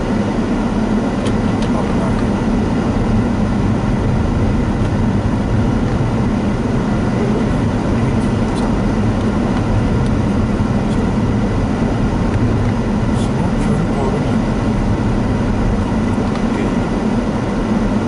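Steady in-cabin road noise of a Daihatsu Rocky 4WD driving on a snow-covered road: tyres on packed snow and a low engine hum, with a few faint clicks.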